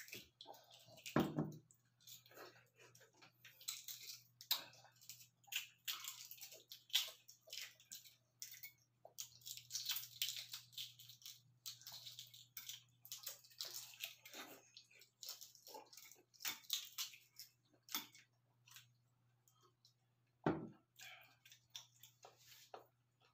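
Balut eggshell being cracked and peeled by hand: many small crackles and scratchy clicks, with wet eating sounds, over a faint low steady hum. A low thump comes about a second in and another near the end.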